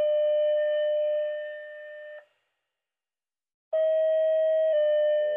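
Fire-department paging alert tones. One steady electronic tone lasts about two seconds and fades at its tail. After a short silence, a second long tone steps slightly lower in pitch about a second in: a dispatch tone-out alerting firefighters to a call.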